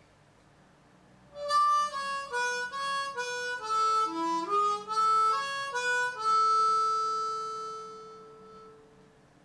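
Ten-hole diatonic harmonica in A playing a simple single-note melody that steps down and back up, note by note, in blow and draw notes. It ends on one long held note that slowly fades.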